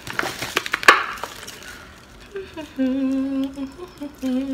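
A woman humming 'mmm' with her mouth closed while tasting gummy bears, a sound of approval: one long held hum, then a shorter one near the end. A few short clicks and rustles in the first second or so.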